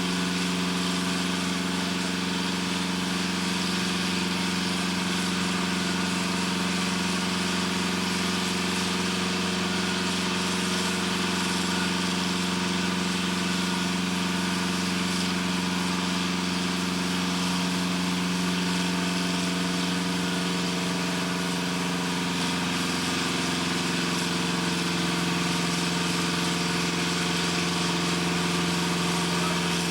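Heavy machinery running steadily: an even, unchanging drone with a strong low hum.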